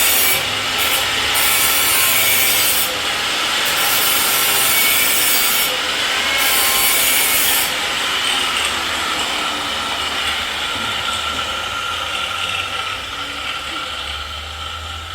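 Angle grinder grinding metal: a loud, steady rasping grind that softens after about eight seconds and then slowly fades.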